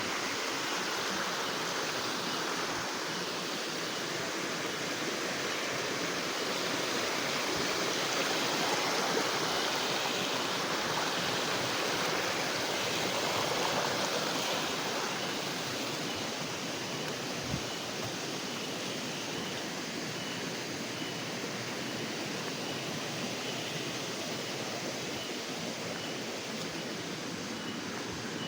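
Steady rushing of a small river's flowing water, swelling slightly for a few seconds partway through.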